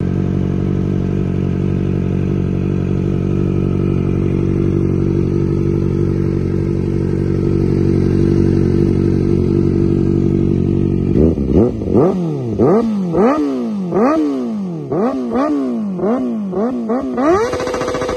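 Kawasaki ZX-4R's inline-four engine through an aftermarket sport exhaust, idling steadily, then about eleven seconds in revved in a quick run of sharp throttle blips. Each rev rises and falls straight back, and the last is held high briefly before dropping.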